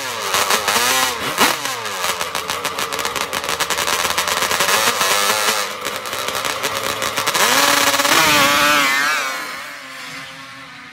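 Custom triple-cylinder two-stroke Yamaha Banshee drag quad revving hard in quick up-and-down blips at the start line, then held at high revs with a rapid crackle. About seven seconds in it launches, pitch climbing through the gears, then fading as it runs away down the sand track.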